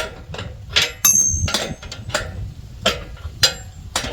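Repeated sharp metal clicks, roughly one every half to three quarters of a second, from a sawmill bunk being adjusted down to height, with a brief metallic ring about a second in.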